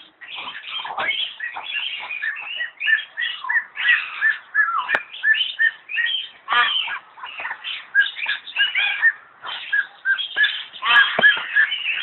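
Myna calling: a rapid, continuous run of varied whistles, chirps and harsh squawks, many notes sliding up or down in pitch.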